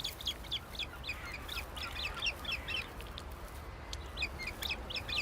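Ospreys calling at the nest: runs of short, high chirping whistles in quick succession, pausing briefly about three seconds in before starting again.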